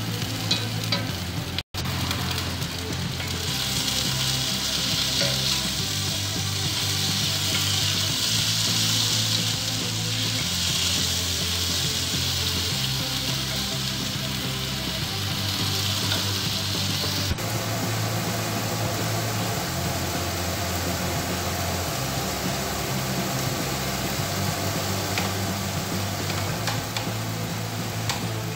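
Sliced onions and chicken pieces sizzling in hot oil in a frying pan as they are stirred with a wooden spoon; the sizzle is loud through the first half and drops off abruptly a little past the middle. Background music with a steady bass line plays underneath.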